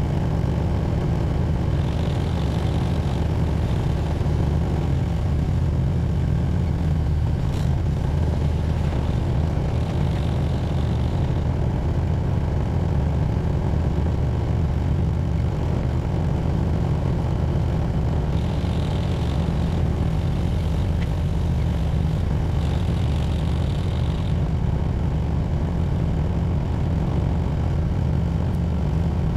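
Tractor engine running steadily, a continuous low drone heard close up from the hood. A faint higher-pitched sound comes and goes about four times over it.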